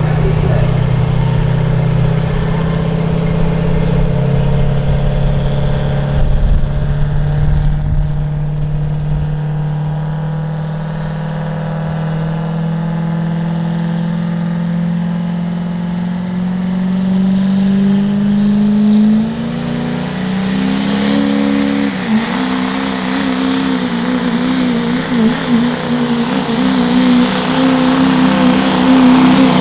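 Pro stock diesel pickup truck engine running hard at a steady pitch. Its revs climb from about two-thirds of the way in, with a brief rising whistle. It then gets louder and more uneven toward the end.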